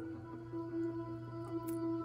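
Background music: a soft ambient tune with held notes over a low steady drone, with a few faint clicks.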